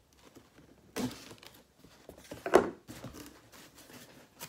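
Cardboard shipping box being slit and pried open along its taped seam with a small blade: scraping and rasping of packing tape and cardboard, with louder rasps about one and two and a half seconds in.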